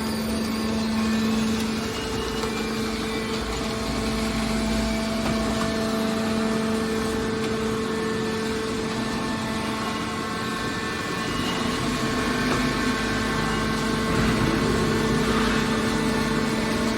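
Hydraulic metal baler's power unit running with a steady hum, its motor and pump holding a constant pitch.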